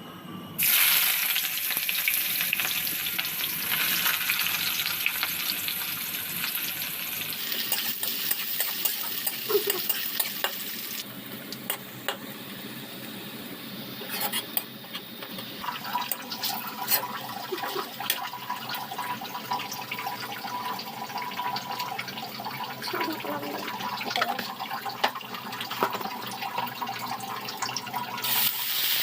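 Kitchen cooking sounds: a hiss that starts about half a second in, with frequent small clicks and knocks of utensils and food being handled.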